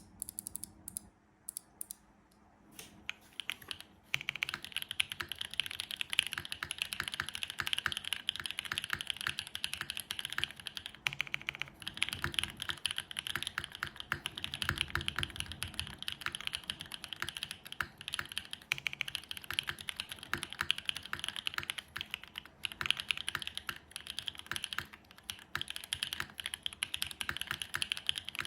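Mode Sonnet custom mechanical keyboard with a carbon fibre plate, plate foam, lubed Createkeebs SOTC linear switches and GMK keycaps being typed on. A few separate keystrokes come first, then fast, continuous typing from about four seconds in.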